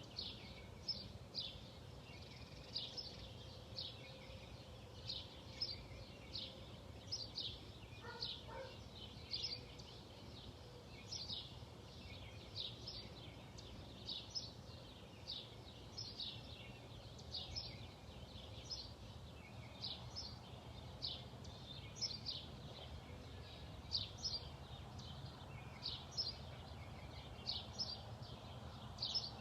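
A small bird chirping over and over: short, high, downward-slurred chirps in twos and threes, about once a second, over a low steady hum.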